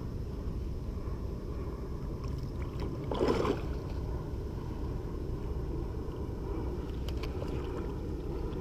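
Steady low rumble of wind and water around a small boat, with one short noisy burst about three seconds in and a few faint clicks.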